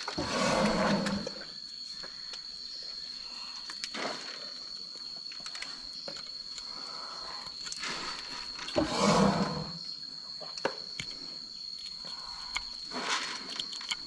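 An elephant makes two loud, low sounds of about a second each, one at the start and one about nine seconds in. Between them a hoof knife makes small scrapes and clicks as it pares the sole of her foot.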